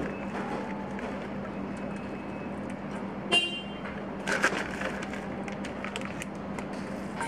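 Scrambled eggs sizzling steadily in a thin aluminium pot as chopped green onions are tipped in. A short metallic ringing clink on the pot comes about three seconds in, followed by a few light knocks a second later.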